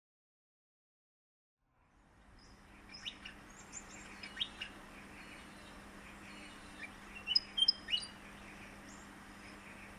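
After about two seconds of silence, outdoor ambience fades in: birds chirping in short, sharp calls, in two flurries, over a faint steady hum.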